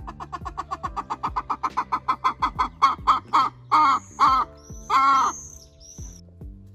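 A hen cackling: a fast run of clucks, about eight a second, building in loudness and breaking into a few long, loud squawks about four seconds in. Background music with a beat runs underneath.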